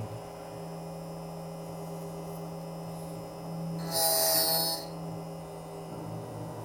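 HPC Tiger Shark 2 key-cutting machine running with a steady motor hum. About four seconds in, its cutter grinds against the key's metal for under a second, trimming the peaks off the cuts.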